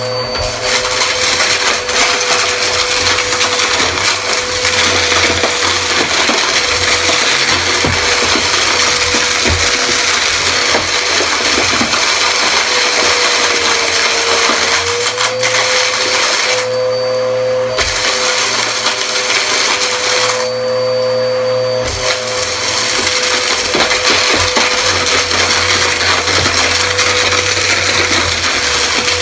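Upright bagless vacuum cleaner running steadily over a rug strewn with confetti, sequins and glitter, its motor whine mixed with the crunching of debris being sucked up through the brushroll. Twice the airy hiss briefly drops away and the motor's tone rises a little.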